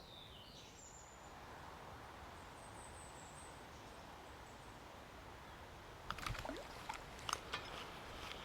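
Riverside ambience: a steady low hiss of flowing river water with faint bird chirps in the first second and around three seconds in, then from about six seconds in a short run of sharp clicks and knocks.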